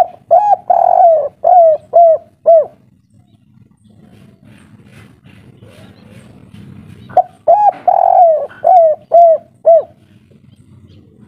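Spotted dove cooing its 'kuk 3' song: two phrases of about six rounded coos each, one at the start and one about seven seconds in. Each phrase has one longer coo near its start and closes with three quick coos.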